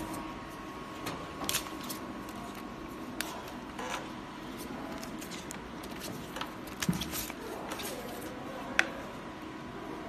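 Steady machine hum from a foot-pedal-operated press, with scattered clicks and knocks as it is worked and cut plastic film pieces are handled.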